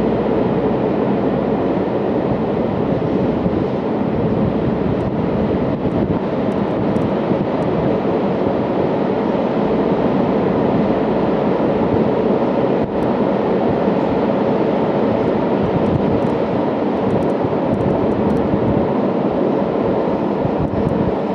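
A freight train of tank wagons rolling across a steel truss bridge overhead: a steady, loud noise of wheels on the rails and bridge, with a few faint sharp ticks.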